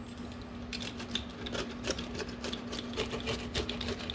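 The crisp, well-done crust of a pizza being cut on a cutting board: a dense run of small crunching crackles starting just under a second in. The crust is crispy from being over-baked.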